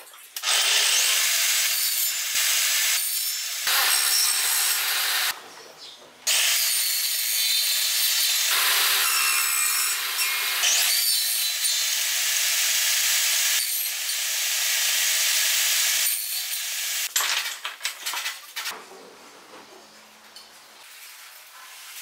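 Table saw cutting wood: two long passes of the spinning blade through the stock, with a short break about five seconds in. The cutting stops about seventeen seconds in, leaving only light handling noise.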